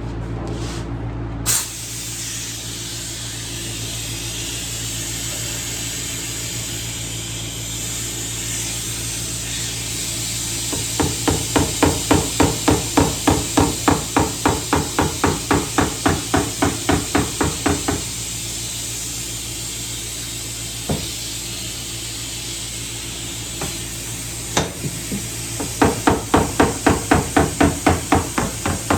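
Hammer tapping down high spots on a dented steel car door panel, quick even light knocks about three to four a second in two runs, while the suction cup dent puller holds a pull on the dent. A steady hiss runs underneath.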